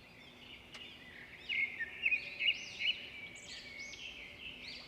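Several wild birds chirping and singing over one another, with a run of louder, repeated chirps in the middle.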